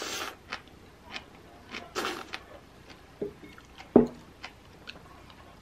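Close-up eating sounds: slurping and chewing of bean sprouts with light clicks of wooden chopsticks and spoon. About four seconds in comes a sharp knock of the spoon against the ceramic bowl, the loudest sound.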